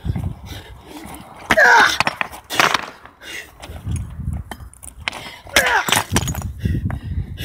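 A hand-held stone smashing down on a brick resting on a boulder, three sharp cracking blows. Each comes with a man's loud shout that falls in pitch. Two blows come about a second apart, the third about three seconds later.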